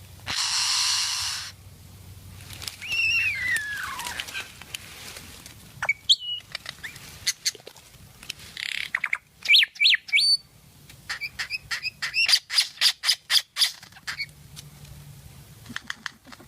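A bird calling in a varied string of sounds: a harsh squawk at the start, a long falling whistle about three seconds in, sharp up-sweeping notes, then a quick run of short notes, several a second, past the middle.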